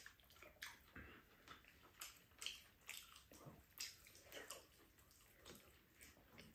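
Faint, scattered eating sounds: lip smacks, slurps and chewing, with the small clicks and scrapes of wooden spoons in a frying pan and bowls.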